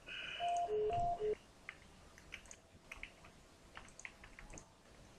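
A short electronic beeping tone, two notes alternating high and low, sounds for about the first second and a half. It is followed by faint, scattered computer mouse and keyboard clicks.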